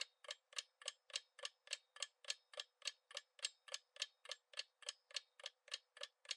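Ticking-clock sound effect counting down the answer time: faint, even ticks at about three and a half a second.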